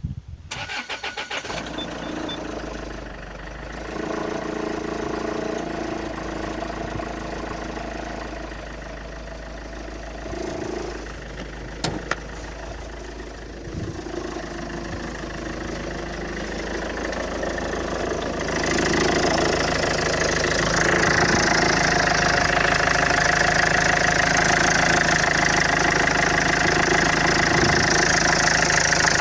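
Engine cranked by the starter and catching after about a second and a half, then idling. The owner is looking into an extraneous noise and vibration at idle. About eighteen seconds in the sound grows louder and brighter.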